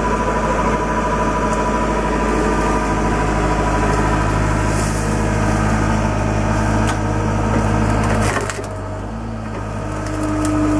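A John Deere loader's engine running steadily while its hydraulic grapple pushes into saplings and brush, with wood cracking and splintering about five, seven and eight seconds in. The engine sound drops about eight seconds in, and a steady higher tone comes in near the end.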